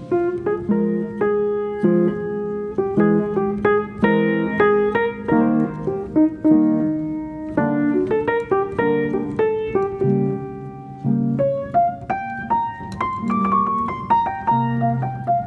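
Background piano music: a steady flow of struck notes and chords, each fading after it is played.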